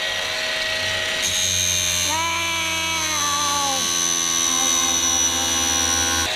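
Angle grinder with a flap disc grinding away a golf cart's fender flare: a steady high whine over a low motor hum, stronger from about a second in, then cutting off suddenly near the end.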